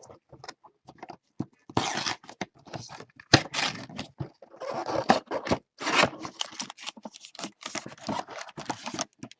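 Wrapping on a sealed hobby box of trading cards being torn and crinkled by hand: irregular rustling, scraping and tearing with a few sharp clicks.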